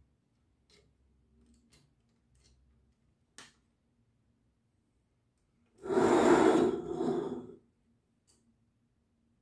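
Lego Clone Turbo Tank model being handled: a few faint plastic clicks as its hinged side panel is closed, then, about six seconds in, a loud rushing scrape lasting nearly two seconds as the heavy model is turned around on the table.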